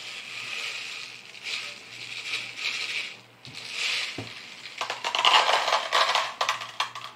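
Shotgun pellets poured from a bottle into a plastic cup: a gritty rattling of many small metal balls in several pours, the heaviest about five to six and a half seconds in.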